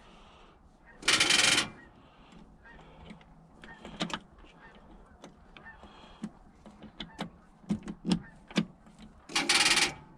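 Starter solenoid on a Case 580 Super L backhoe chattering in rapid clicks as the key is turned, twice, with scattered single clicks between: the battery is too dead to crank the engine.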